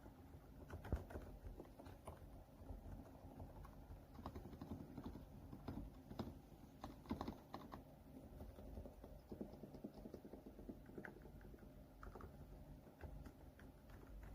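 Quiet typing on an ASUS ROG Azoth mechanical keyboard with TTC Ice Frozen V2 linear switches: a steady, irregular run of soft key strokes.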